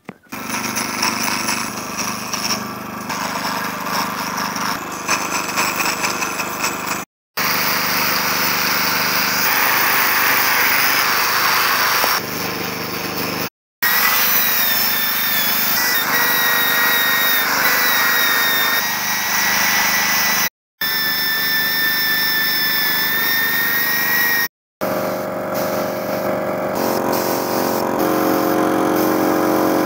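Small high-speed power tools running against wood in several short clips. An electric rotary tool spinning a nylon abrasive wheel gives a high, steady whine, and an air-powered grinder with an abrasive drum runs near the end.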